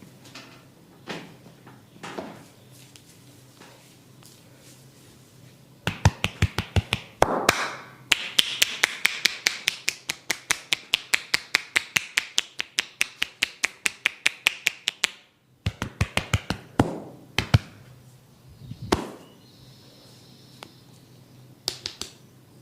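A barber's hands tapping and slapping the head during a massage: a fast, even run of sharp strikes, about four or five a second, lasting roughly nine seconds from about six seconds in, with scattered single taps before and after.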